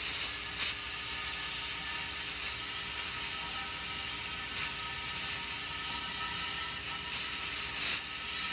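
Plasma cutter hissing steadily as it cuts through the steel of a propane tank that is turning slowly on a homemade lathe, under a steady mechanical hum and whir.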